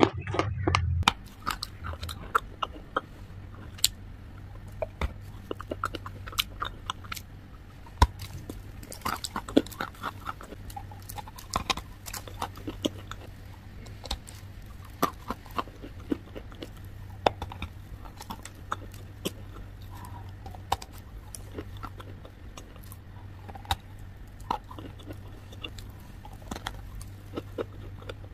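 Dry chunks of white khadi clay being bitten and chewed close to the microphone: irregular sharp crunches and crumbles throughout. A steady low hum runs underneath.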